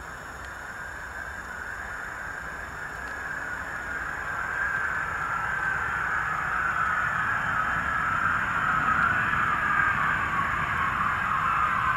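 Douglas DC-8's four jet engines whining on approach, growing steadily louder as the aircraft closes in, the whine slowly sinking in pitch over a low rumble.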